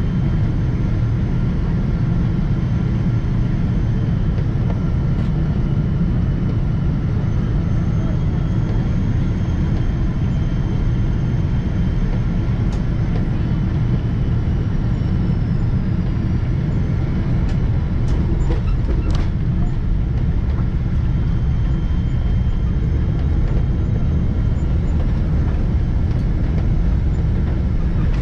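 Cabin noise of a Boeing 777-200ER over the wing during landing: a steady roar of airflow and the Rolls-Royce Trent engines, with a faint high whine. A few sharp knocks and rattles come about two-thirds of the way through, around touchdown.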